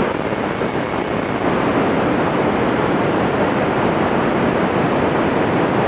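Loud, steady hiss of radio static on a 2-metre FM amateur radio receiver, with no readable voice in it.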